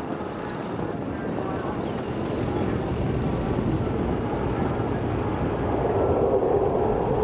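Distant jet roar from a pair of F-15 Eagle fighter jets flying overhead, a steady rumble that grows louder toward the end.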